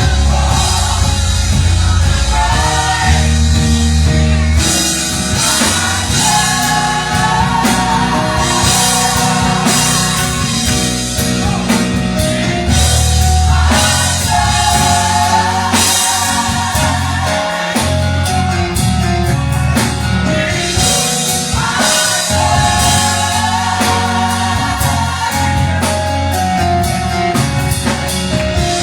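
Gospel choir singing with a live band, sustained sung lines over bass and drums.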